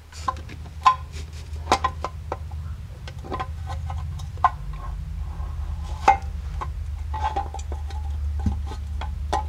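Aluminum NP231 transfer case half being worked by hand over the shafts and chain: scattered light metal clinks and knocks as it is wiggled into place, over a steady low hum.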